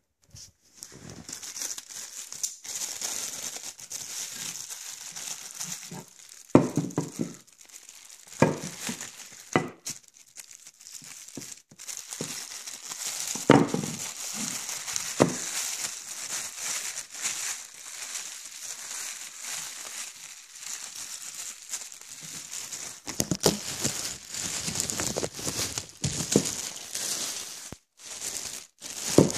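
Packaging material crinkling steadily as it is handled and unwrapped by hand, with several dull knocks along the way.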